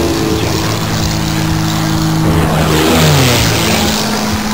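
Propeller aerobatic plane flying past: a steady engine drone over a rushing noise, its pitch falling as it passes, once at the very start and again about three seconds in.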